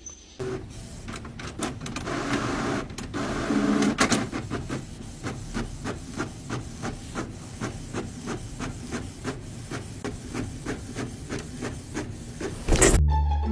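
Desktop printer printing a page: the print mechanism and paper feed work in a steady, regular run of clicks.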